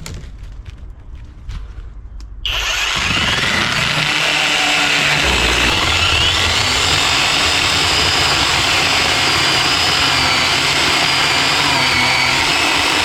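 A battery-powered cordless chainsaw starts about two and a half seconds in and runs steadily, cutting into a fallen dead hawthorn, its high electric whine shifting slightly in pitch as it works. Before it starts there are a few faint clicks and knocks.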